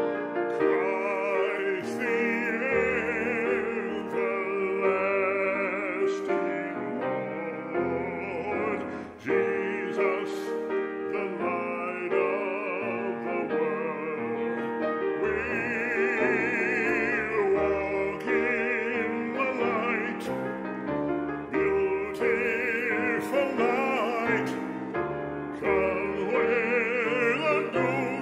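A man singing solo in a classical, operatic style with a wide vibrato, accompanied by a grand piano.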